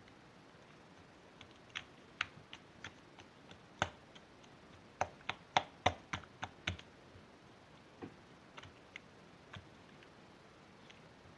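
Irregular sharp clicks and taps, a few scattered at first, then a quick cluster of about ten about halfway through, then a few more spaced out.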